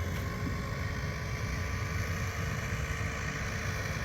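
Radio-controlled propeller boat's brushed electric motor whining at a steady pitch as the boat runs on the water, over a low rumble.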